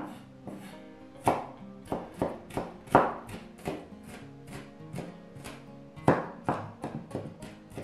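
Chef's knife chopping red onion on a wooden cutting board: quick, irregular knocks of the blade on the board, about two or three a second, over background music.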